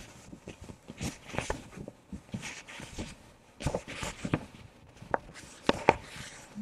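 A printed paper sheet handled by hand: faint, scattered rustles and crinkles, with a few sharper crackles near the end.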